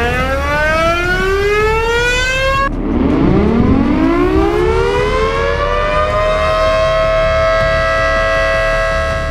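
Outdoor tornado warning siren winding up, its pitch rising, cut off about two and a half seconds in. A second siren then winds up from a low pitch and levels off into a steady wail.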